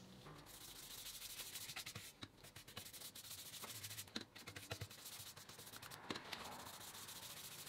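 Brush applying liquid finish to a wooden board: a faint, steady scratchy rubbing of bristles across the wood that begins about half a second in, with scattered light clicks.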